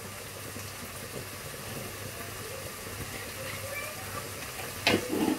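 Onions and peppers frying in a pan, a steady soft sizzle; a few sharp knocks and clatters near the end.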